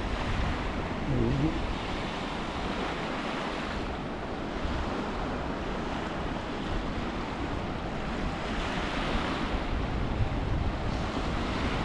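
Small waves washing in and breaking on a shallow sandy beach, swelling and easing every few seconds, with wind gusting on the microphone.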